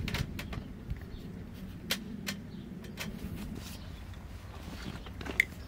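Scattered light clicks and knocks of camping gear being handled, a folding camp table and a gear bag, over a low steady rumble. A short high chirp comes near the end.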